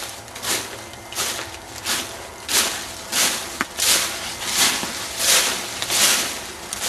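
Walking footsteps, each a short rustling swish, at a steady pace of about three steps every two seconds.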